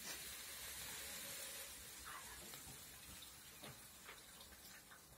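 Coca-Cola fizzing hard after salt is poured into it: the salt sets off a rush of carbon dioxide bubbles, and the foam hisses and pours down into a plastic bowl. The hiss is strongest at the start and slowly dies away.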